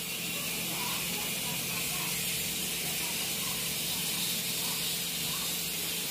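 Steady high hiss with a faint low hum underneath, even throughout.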